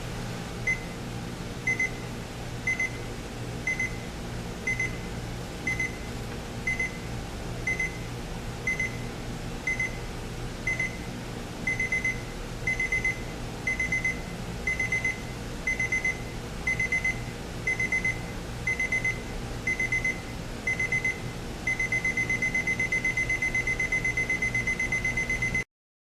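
Jensen JCR-275 clock radio's buzzer alarm sounding: a high-pitched beep about once a second, which becomes paired beeps about halfway through, then turns into fast continuous beeping for the last few seconds before it cuts off abruptly. A steady low hum runs underneath.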